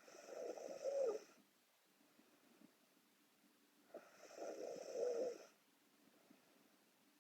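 A sleeping young woman snoring: two snores about four seconds apart, each lasting about a second and a half.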